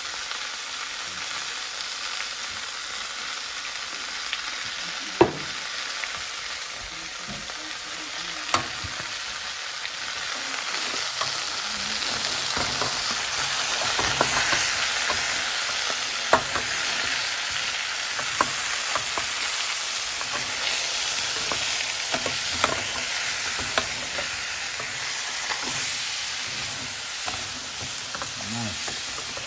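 Chicken wings and diced vegetables in jerk marinade sizzling in a stainless steel pot while being stirred with a spoon, the spoon knocking sharply against the pot now and then. The sizzle grows louder about twelve seconds in as the stirring goes on.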